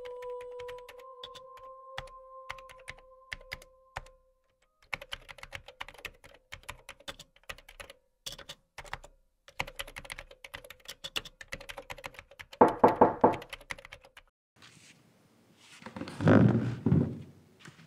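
Laptop keyboard being typed on in quick, uneven clicks. Two louder knocks break in: a quick rattle about two-thirds of the way in, then a heavier thud near the end.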